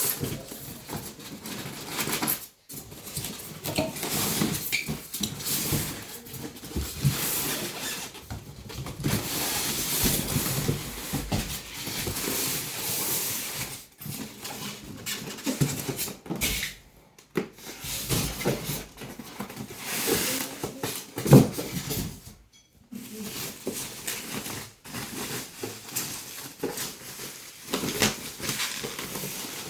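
Rustling, scraping and handling noises of monitor packaging being unpacked by hand, uneven and continuous, with scattered clicks and knocks and a few short pauses.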